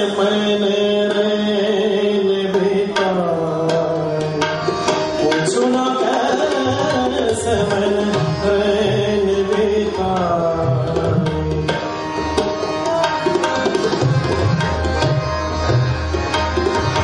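Live ghazal music: a harmonium playing under a man's singing voice, with tabla strokes coming in about halfway through and keeping a steady beat.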